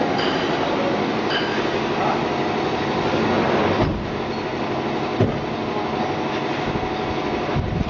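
Gas-heated continuous frying machine running: a steady mechanical rumble with a hum through it. It drops slightly about four seconds in, and a single knock comes about five seconds in.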